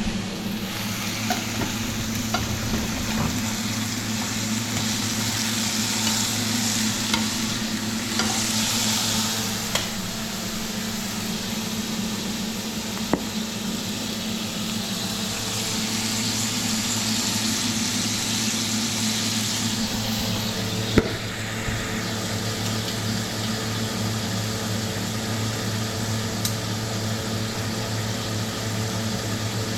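Beef heart sizzling as it fries in a hot pan, a steady hiss that swells and eases, over a steady low hum. There are a few light taps and one sharper knock about two-thirds of the way through, as of a utensil against the pan.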